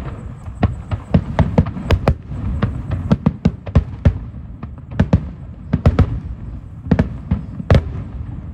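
Aerial fireworks shells bursting: many sharp bangs in quick, irregular succession over a steady low rumble.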